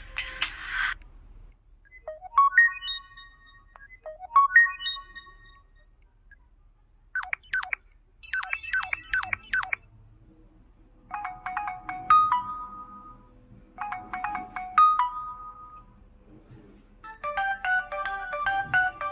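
Samsung SHW-A210S phone ringtones playing one after another, short electronic jingles with brief gaps between them. A rising two-note chime sounds twice, then a burst of quick sweeping chirps, then a short tinkling phrase twice, and a busier tune starts near the end.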